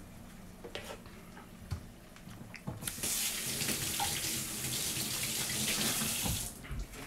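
Kitchen tap turned on, running water into the sink for about three and a half seconds, then shut off, after a few light knocks.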